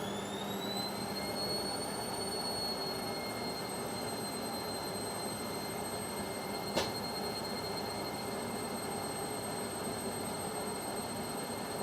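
Indesit washing machine on its spin cycle: the drum motor's high whine rises in pitch for about the first second and a half as the drum speeds up, then holds steady over the rush of the spinning drum. A single sharp click about seven seconds in.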